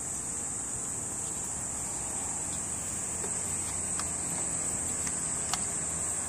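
Steady high-pitched insect chorus, with a few faint clicks in the second half.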